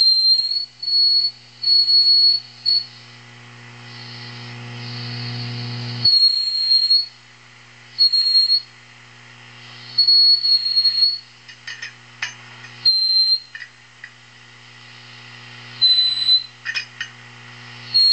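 High-gain tube amp squealing with feedback: a loud, high-pitched whistle that cuts in and out in short bursts over a steady mains hum, with a few clicks in the second half. The feedback is apparently travelling from the power tubes to the preamp tubes through the glass envelopes and the air above the chassis.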